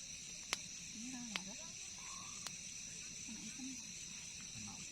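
A steady, high-pitched chorus of night insects, like crickets, with faint distant voices beneath it and a few sharp clicks.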